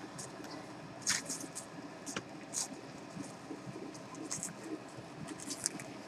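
Portuguese water dog puppies scuffling and playing on disposable puppy pads: irregular short rustles and scratches of paws on the pads, the loudest about a second in.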